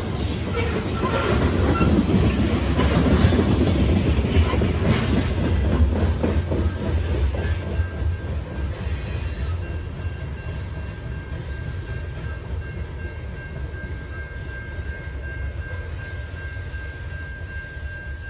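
Freight train of covered hopper cars rolling past close by, its wheels clattering over the rail joints, the sound fading as it draws away. From about eight seconds in a steady high tone holds over the fading rumble.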